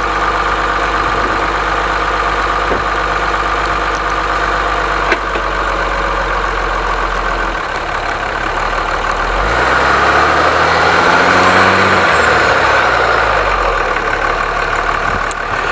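Vehicle engine idling steadily, then revving up and back down for a few seconds about ten seconds in, louder as it revs: an attempt to pull through over a foot of snow without tire chains.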